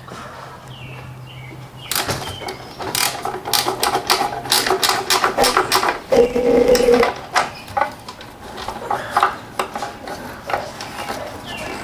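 Ratchet wrench clicking, with metal tool clanks, as a bolt is worked loose in a tight spot of the Lexus RX350 engine bay. The clicking starts about two seconds in and goes on irregularly, with a short pitched squeak-like sound near the middle.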